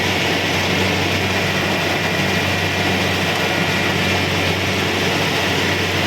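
Kubota DC-70 Pro combine harvester running steadily while working: a constant engine drone under the dense noise of the machinery.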